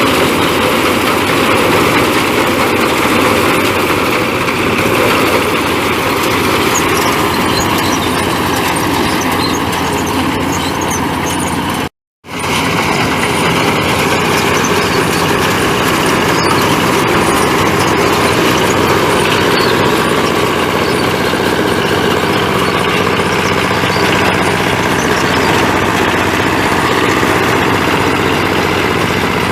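Engine of a power-tiller-driven mini combine harvester running steadily. The sound cuts out for a moment about twelve seconds in, then resumes unchanged.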